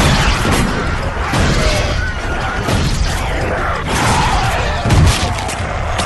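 A loud, chaotic din of crashing and banging, with voices mixed in.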